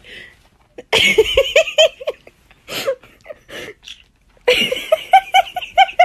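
Bursts of rapid, pitched laughter, a quick run of 'ha-ha-ha' pulses about a second in and again from about four and a half seconds, with shorter single bursts between.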